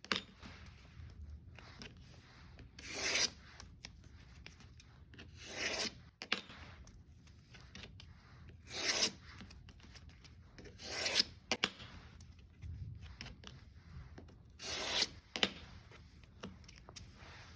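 Sandpaper being folded around a hardwood sanding stick and scored along its edge with a scribe: about five sharp scratching strokes, each about half a second, a few seconds apart, with paper rustling and light clicks between.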